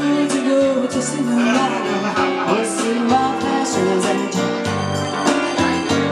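Live band playing an instrumental passage of a blues song: bass line, drums with regular cymbal strokes, and guitar.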